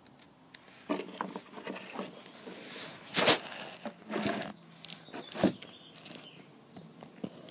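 Handling noise on a phone's microphone: irregular rustles, scrapes and knocks as the phone rubs against a shirt and fingers, loudest a little over three seconds in.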